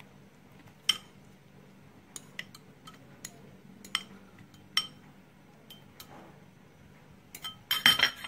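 A metal fork clinking against glass bowls as cut raw potato pieces are pushed from one bowl into a bowl of batter: scattered single clinks about once a second, then a quick cluster of louder clinks near the end.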